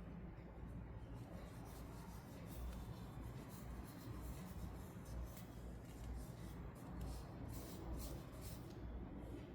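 Toy packaging being handled during unboxing: faint scratching and rustling with many light ticks and crinkles.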